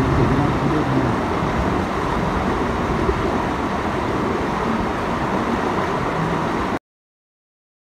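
Steady rushing outdoor noise that cuts off abruptly to silence near the end.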